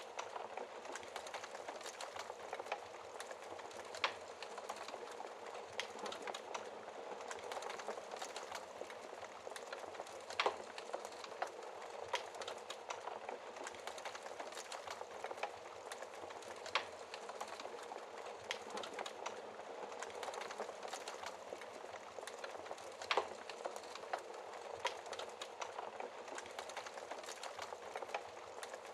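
Wood fire burning in a fireplace: a steady hiss with frequent small crackles and a louder pop about every six seconds.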